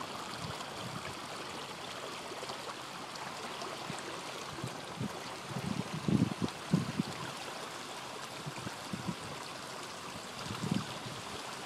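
A car rolling slowly through shallow floodwater: a steady wash and swish of water around the tyres, with a few louder low thumps about six seconds in and again near the end.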